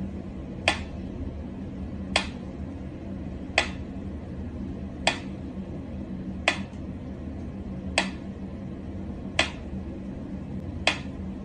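Pyramid-shaped mechanical metronome ticking slowly and evenly, one sharp tick about every one and a half seconds.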